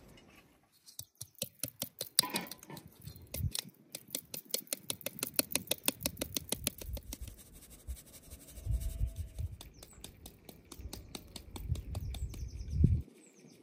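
Wheat flour being sifted through a stainless-steel sieve shaken over a steel bowl: rapid ticking several times a second, with a few heavier knocks from the sieve being handled.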